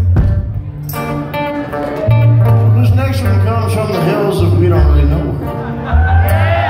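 An acoustic string band plays live through a theatre PA: strummed guitar over strong held bass notes. Audience whoops come in near the end.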